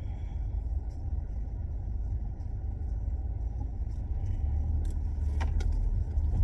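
Low, steady rumble of a car heard from inside the cabin as it moves slowly, with a couple of faint clicks about five seconds in.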